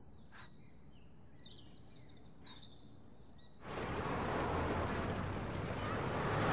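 Quiet room tone with a few faint high chirps, then, about three and a half seconds in, a sudden change to steady street traffic noise: the rush of cars driving past.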